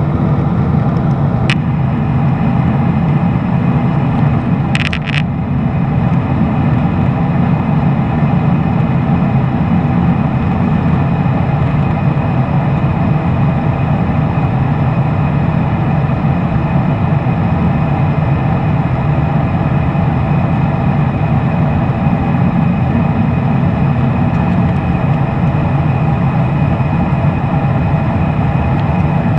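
Cabin noise of a Boeing 777-300ER in flight, heard from a window seat beside the wing: the loud, steady drone of the GE90 engines and airflow, with a low hum and several steady tones. There is a small click near the start and a brief scrape a few seconds later.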